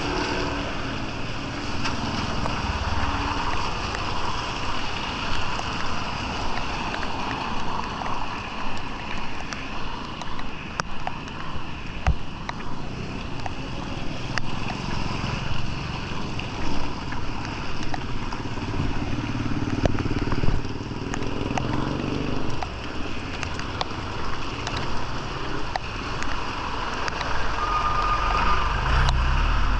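Motor traffic on a street, motorcycles and other vehicles passing one after another, their engines swelling and fading over a steady hiss.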